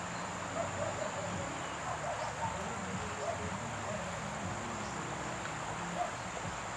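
Insects chirring steadily in a continuous high-pitched drone, over an even outdoor background.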